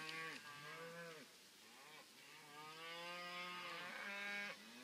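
Cattle in a herd of cows with calves mooing, several faint calls overlapping, with one long moo through the second half.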